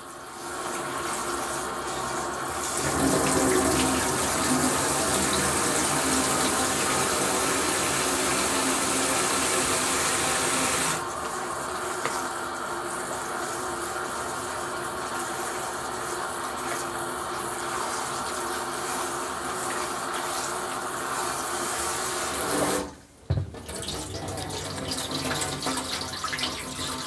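Kitchen tap running into a plastic basin of sauerkraut in a stainless steel sink while hands swish the shredded cabbage in the water; the flow is louder from about three seconds in and eases off around eleven seconds. Near the end, after a brief break, water is poured off from the tipped basin into the sink.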